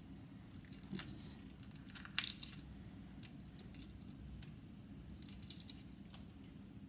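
Faint scattered clicks and crackles of eggshell being picked off a century egg by hand, over a steady low hum.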